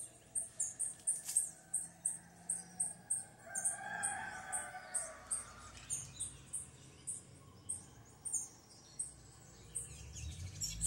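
A rooster crows once, faintly, about four seconds in. Under it runs a high, regular chirping that repeats about three times a second.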